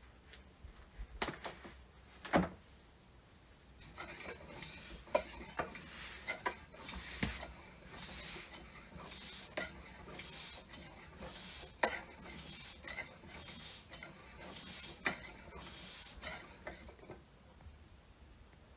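Restored metal hand air pump handled and worked: two sharp knocks, then a long run of metallic clicking and hissing in a steady rhythm, ending abruptly near the end.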